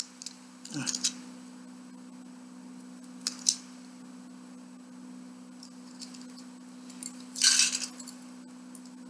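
Plastic Lego bricks clicking as they are handled, with a louder clatter about seven and a half seconds in as hands sift through a pile of loose bricks. A steady low hum runs underneath.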